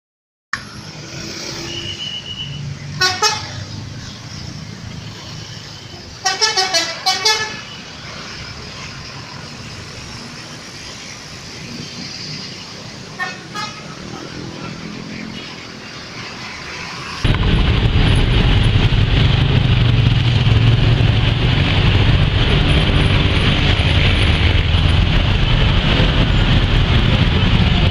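Roadside traffic with a bus's musical "telolet" horn: a short toot about three seconds in, a quick run of several different tones about six seconds in, and another brief toot near halfway. After about seventeen seconds a much louder, steady engine and road rumble takes over.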